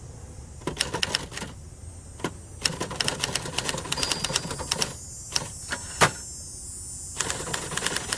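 Keys striking on a 1970s Adler Gabriele 25 manual typewriter, typed in quick bursts of sharp clicks with short pauses between them. One strike about six seconds in is louder than the rest.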